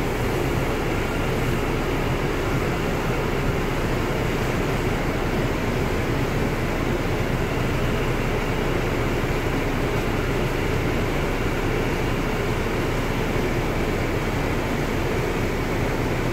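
Steady running noise inside an R179 subway car moving at speed: an even rumble of wheels on the rails, with no clear changes.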